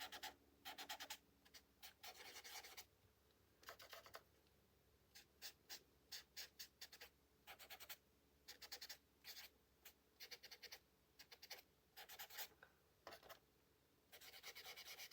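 A small applicator rubbing chalk pastel onto coloring-book paper: faint, quick scratchy strokes in short bursts with brief pauses between.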